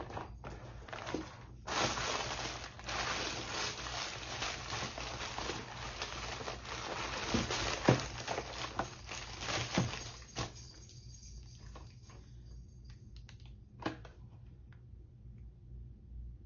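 Packaging crinkling and rustling as it is handled and unwrapped for several seconds, with a few sharper taps, then settling to occasional light clicks.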